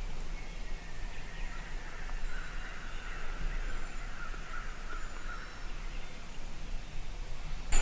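Faint bird calls in the middle, a thin wavering call over steady outdoor background noise, with a much louder call breaking in right at the end.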